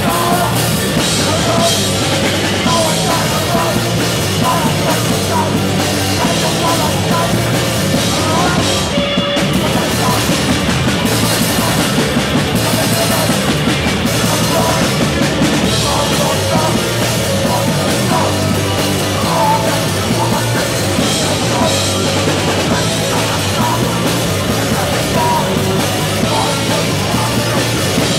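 Live rock band playing loud, with the drum kit prominent, recorded close to the stage.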